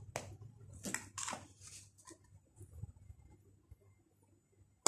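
A spoon scraping and tapping in a small plastic cup of ground paprika, a few short scrapes in the first two seconds, then a single sharp click near the end.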